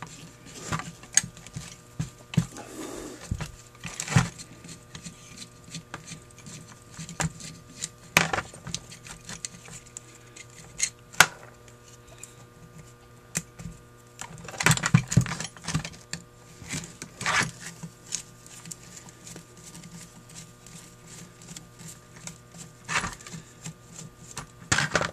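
Irregular clicks, clinks and knocks of a screwdriver and small metal parts of a Holley 1904 one-barrel carburetor being pried apart and handled on a rubber mat, with a few louder clusters of clatter, over a faint steady hum.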